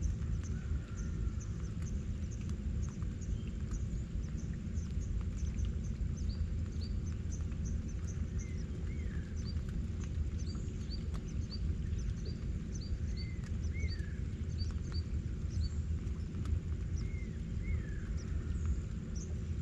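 Birds calling from the mangroves: many short high chirps, and a slurred whistled call that repeats every few seconds. Underneath, a steady low rumble is the loudest sound throughout.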